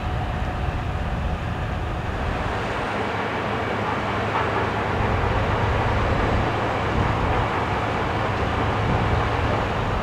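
Steady, even outdoor engine rumble with a constant low hum, from heavy machinery and vehicles running nearby.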